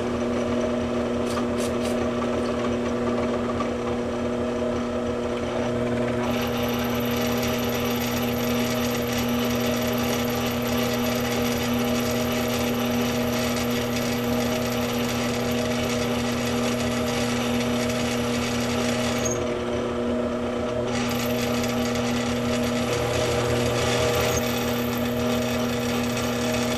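Benchtop drill press running with a steady motor hum while a bit drills slowly through a stainless steel low-profile gas block into an AR-15 barrel, lubricated with cutting oil. A high hiss of the bit cutting metal joins about six seconds in, drops out briefly around twenty seconds in, and returns.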